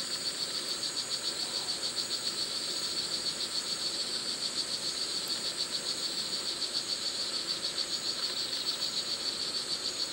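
Male red-throated frog calling for a mate: a rapid, even train of high-pitched buzzy pulses repeating without a break.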